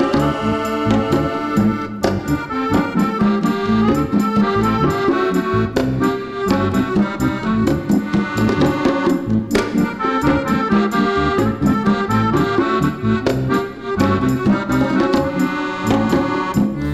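Piano accordion playing a tango melody in chords over a steady percussion backing track.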